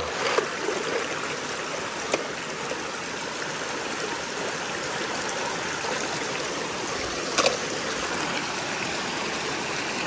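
Waterfall water rushing steadily over a rock slab, with two brief knocks.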